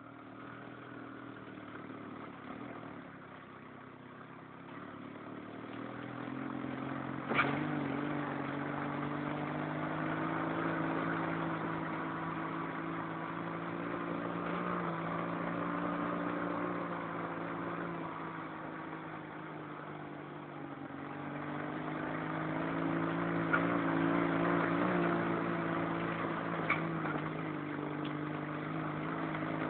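Dune buggy's engine running steadily while driving, its pitch and loudness swelling and easing a couple of times. There is one sharp knock about seven seconds in and two lighter clicks near the end.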